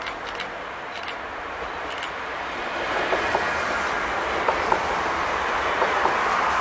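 Electric multiple-unit commuter train passing close by: a steady rush of wheels on rail that grows louder about three seconds in as the cars go by, with sharp wheel clicks over the rail joints.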